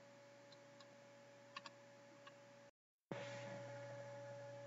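Near silence: steady electrical hum of the recording with a few faint, short clicks. About three seconds in the sound cuts out completely for a moment, then the hum comes back louder.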